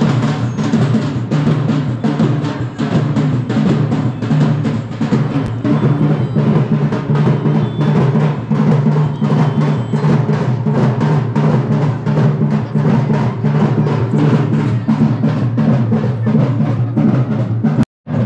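Music with a fast, even drumbeat of about four to five strokes a second over a dense low drone; it drops out for a moment near the end.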